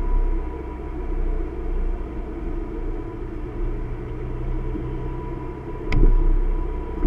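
Car driving slowly, heard from inside the cabin: a steady low road and engine rumble with a faint steady whine. About six seconds in, a sharp knock and a brief surge of low rumble, like the car going over a bump.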